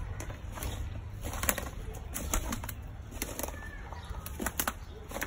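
Outdoor background with scattered sharp clicks and ticks over a steady low rumble, and a faint bird chirp past the middle.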